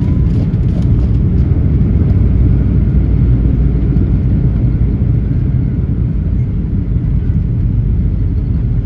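Boeing 737-800 cabin noise during landing: a loud, steady low rumble, with a few light rattling clicks in the first second.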